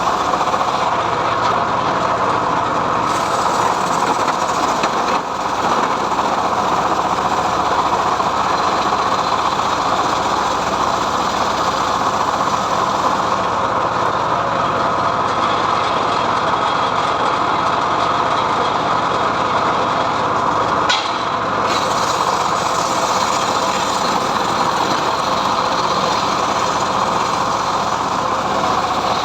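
Homemade engine-driven srekel log saw running steadily as it rips through mahogany, with a short sharp click about two-thirds of the way through.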